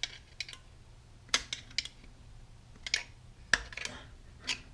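Irregular sharp metal clicks and taps, about eight in a few seconds, as a snap ring is worked toward its groove over a compressed Belleville return spring in an E4OD transmission. The loudest clicks come about a second and a half in and near three and a half seconds in.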